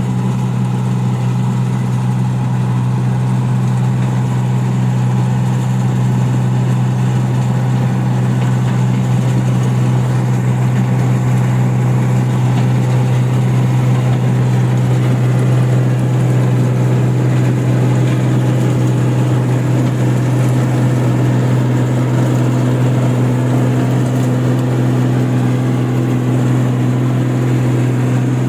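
Engine of a rice paddy machine running steadily with a constant low hum; a second, higher tone joins in about three-quarters of the way through.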